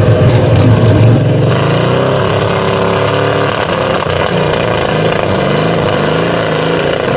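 GAZ 66 trial truck's engine revving hard under load as the truck climbs a steep dirt slope. Its pitch shifts about a second and a half in, then rises and wavers with the throttle.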